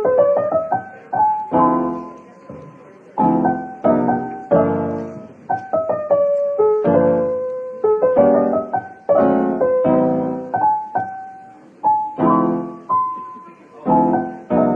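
Background piano music: a melody over struck chords, each note fading after it is played.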